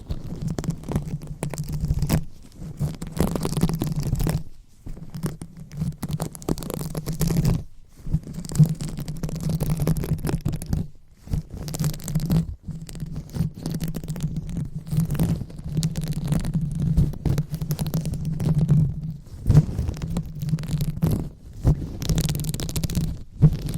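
Close-up rubbing and scratching on a microphone for ASMR 'brain massage' tingles: an irregular stream of scratchy strokes over a deep handling rumble, broken by short pauses.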